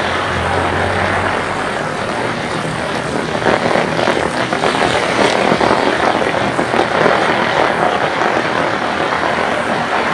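Heavy rain falling, a steady dense hiss, with the splashing steps of sandals on wet pavement. A low hum at the start dies away about a second in.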